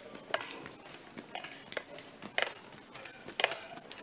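Irregular light clinks and knocks, about one every half second, over a rustling hiss close to a handheld phone's microphone as it is carried along.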